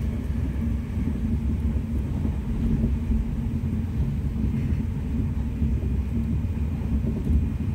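Steady low rumble of a passenger train running, heard from inside the carriage.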